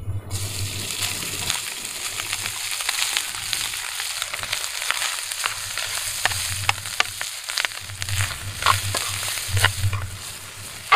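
Fried rice with garlic sizzling in a hot pan as it is stirred. The sizzle starts suddenly, and the utensil ticks and scrapes against the pan throughout, with one sharp clack at the end.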